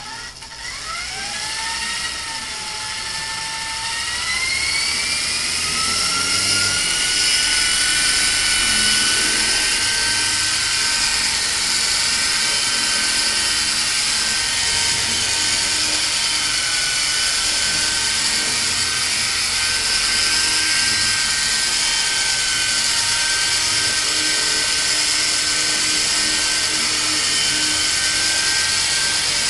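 E-Sky Honey Bee fixed-pitch electric RC helicopter spooling up and lifting off: its motor whine rises in pitch over the first five or six seconds as the throttle comes up. It then settles into a steady high whine with rotor hiss as it hovers.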